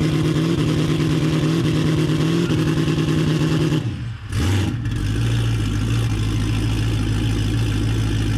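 Turbocharged drag-car engine running steadily through an open turbo dump pipe. About four seconds in the note dips and breaks, then settles into a lower, steady idle.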